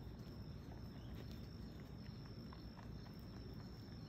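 Quiet night ambience: a steady, high-pitched insect drone, like crickets, over a low rumble, with a few faint ticks.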